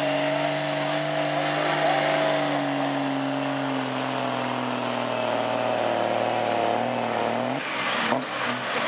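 Dodge Ram pickup's engine running hard under load while pulling a weight-transfer sled, its note holding steady and then slowly sagging as the sled bogs it down. About a second before the end the engine note drops off sharply, with a couple of sharp knocks.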